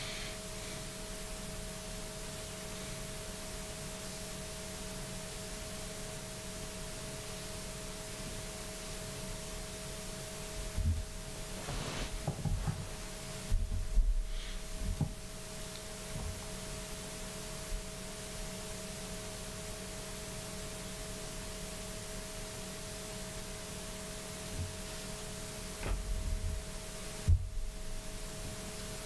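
Room tone: a steady hiss with a faint, steady electrical hum of two tones. A few dull low bumps come around the middle and again near the end.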